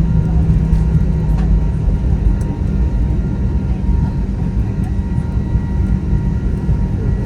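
Cabin noise inside a Boeing 737-900 taxiing after landing: a steady, loud low rumble from its CFM56-7B engines and airframe, with a faint steady whine above it.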